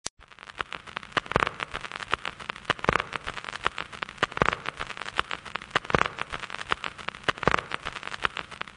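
Dense, irregular crackling and popping, with a faint low hum underneath.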